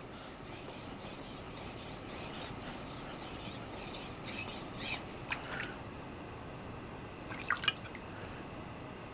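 A gyuto's steel edge is stroked back and forth on a wet 3000-grit Suehiro waterstone, making a steady scraping hiss with faint pops for about five seconds. The pops are a tiny micro burr being polished off. It then goes quieter, with a few light clicks and drips of water.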